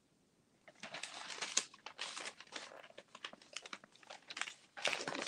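Newspaper pages rustling and crinkling as they are handled, in an irregular run of short crackly rustles that starts just under a second in.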